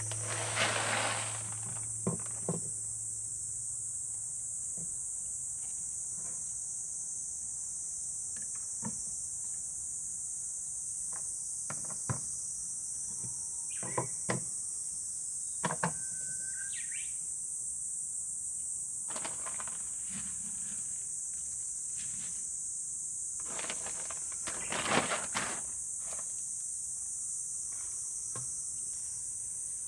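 Steady high-pitched chorus of insects, with scattered short knocks and clicks of plant pots and soil being handled, the busiest cluster of knocks near the end.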